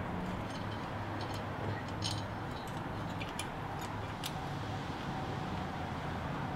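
Light metal clicks as a locking nut is fitted over the axle nut at the hub and turned by hand to line up the cotter-pin hole: a few scattered ticks over a steady low hum.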